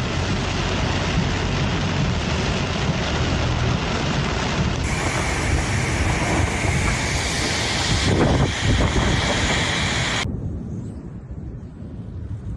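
Storm noise from heavy rain and wind, with wind buffeting the microphone, in a dense rushing roar that changes abruptly about five seconds in and again near the end, where it turns duller and quieter.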